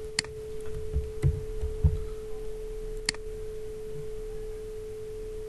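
Two sharp computer-mouse clicks, one just after the start and one about three seconds in, over a steady single-pitched tone. A few soft low thuds come between one and two seconds in.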